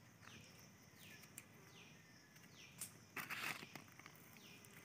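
Near silence with a faint high call repeating about every three-quarters of a second, each one falling in pitch. About three seconds in there is a brief scraping of a stick digging in soil.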